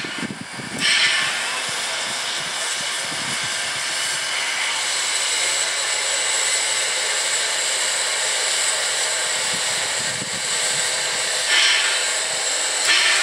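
Prairie Dog Central's vintage 4-4-0 steam locomotive working slowly along the track, with a steady hiss of steam from around its cylinders. Louder surges of steam come about a second in and again twice near the end.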